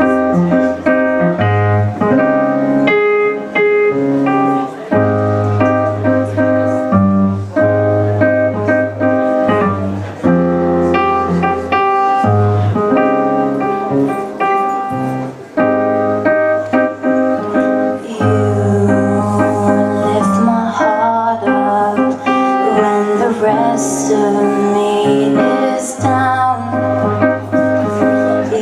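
Instrumental intro of a pop song: keyboard chords moving in a steady rhythm over a sustained bass line.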